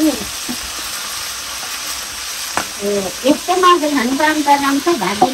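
Pieces of rabbit meat sizzling in hot oil in a wok over a wood fire, with a metal ladle stirring and scooping the meat and a single knock from it about halfway through. A person's voice speaks over the sizzle in the second half.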